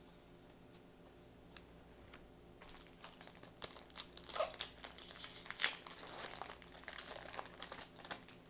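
Yu-Gi-Oh! booster pack's foil wrapper being torn open and crinkled by hand. A dense run of crackling and tearing starts about two and a half seconds in and goes on almost to the end.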